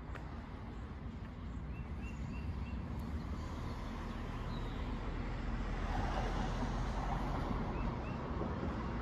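A car passing on the road, its tyre and engine noise building to a peak about two-thirds of the way through and then easing off. A few short bird chirps come through, a group of four early on and two more near the end.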